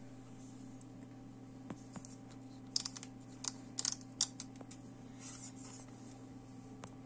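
Handling noise from a FED 4 rangefinder camera turned over in the hands: a cluster of sharp small clicks and taps in the middle, and a brief rubbing rustle a little later, over a steady low hum.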